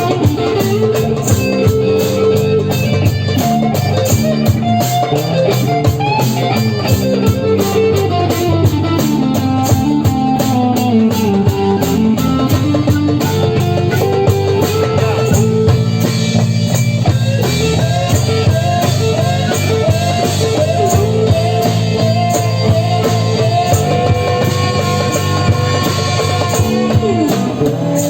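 Live psychedelic trance jam: a fast, steady driving beat under a lead line that slides up and down in pitch, with a guitar-like plucked sound in the mix.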